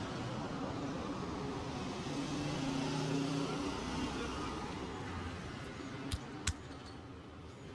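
Street traffic noise with a motor vehicle's engine passing, swelling and fading around the middle; two sharp clicks about six seconds in.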